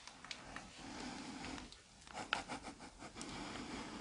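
Faint scuffs and a few light clicks of someone moving about on foot in a quiet, cluttered room.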